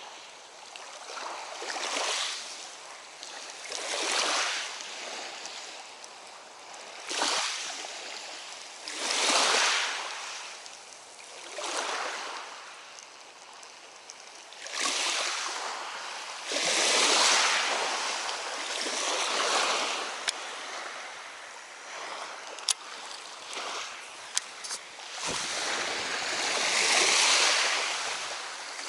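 Small lake waves washing against the shore, the hiss swelling and fading every two to three seconds, with a few faint clicks in the second half.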